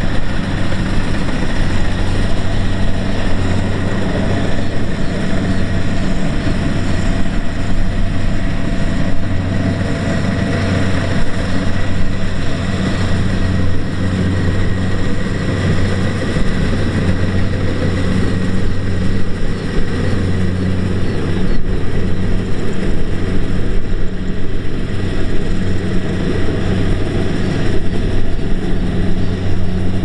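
Kubota DC-70Plus combine harvester's diesel engine running steadily at working speed as the machine cuts and threshes rice. It is a continuous low hum with a broad mechanical rush over it.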